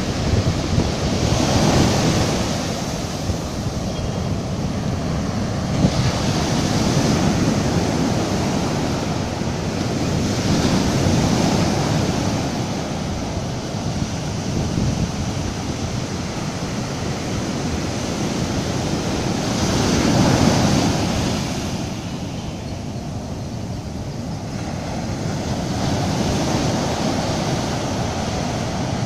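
Surf breaking and washing over a sandy beach: the swash runs up the sand and the backwash drains back, the sound swelling and fading every few seconds, loudest about two-thirds of the way in.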